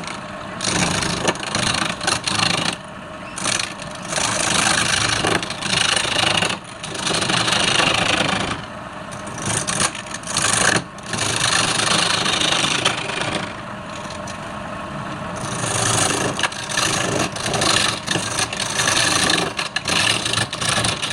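Wood being cut on a lathe: a turning tool scraping the spinning workpiece in rough passes of a few seconds each, with short breaks between passes and the lathe motor running underneath.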